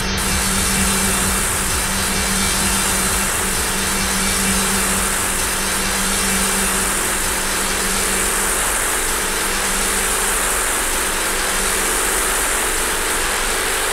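Beatless breakdown in an industrial techno track: a steady, engine-like drone with hiss and a low hum, no kick drum.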